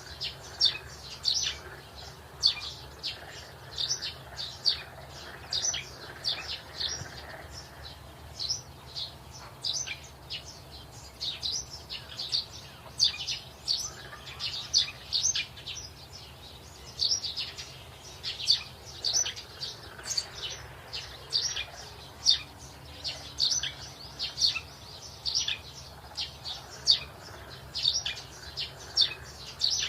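Small birds chirping: a steady run of short, high chirps, a few each second.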